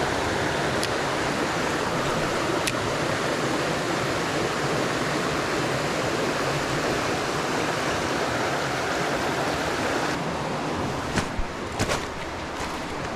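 Steady rush of running creek water. Near the end it eases a little and a few sharp clicks and knocks come through.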